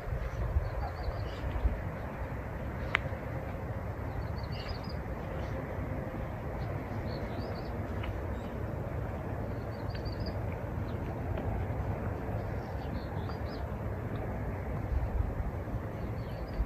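Small songbirds chirping in short runs of high notes every couple of seconds over a steady low rumble, with a single sharp click about three seconds in.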